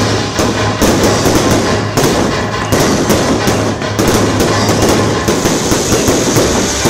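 Aerial firework shells bursting overhead in a continuous barrage, with sharp bangs about two a second over a dense crackle.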